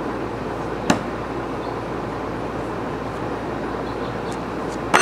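Thrown knives striking a wooden post target: one sharp hit about a second in and another near the end, over steady background noise.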